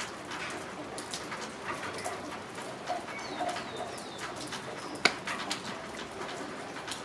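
Steady rain falling on trees and nearby surfaces, with many close drips tapping and one sharp, loud tap about five seconds in. A bird calls with a few low notes a little before the middle.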